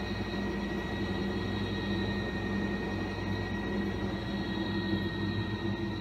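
Fisher & Paykel Pride top-loading washing machine running with a steady low hum and a thin high-pitched whine.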